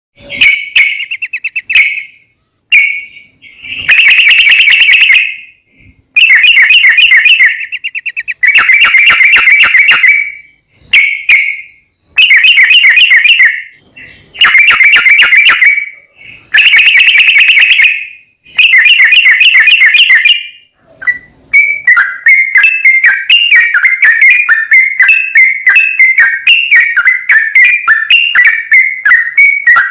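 Yellow-vented bulbul (trucukan) singing loud, rapid trilled phrases of one to two seconds with short gaps between them. About two-thirds of the way through, it breaks into an unbroken run of quick warbled notes: the long-trill "ropel" song used as a lure to set other bulbuls singing.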